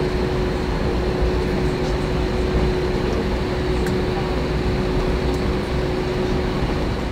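Steady cabin noise of an airliner taxiing: a low engine rumble and air hiss with a constant hum.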